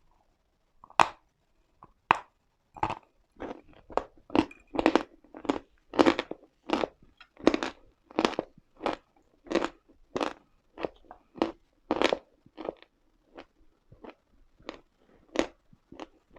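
Uslada chalk being bitten and chewed: a run of sharp, irregular crunches, about two a second, starting about a second in.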